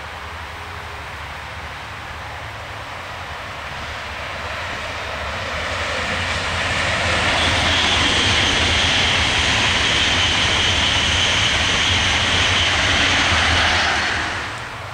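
Locomotive-hauled passenger train, an SBB Re 460 electric locomotive with its coaches, passing at speed. A rush of wheel and air noise with a high steady whine swells over several seconds, holds, and drops away suddenly near the end as the last coach goes by.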